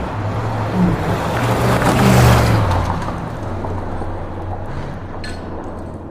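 Muscle car driving at speed, a deep low engine note under tyre and wind noise, growing loudest about two seconds in and then fading as it moves away.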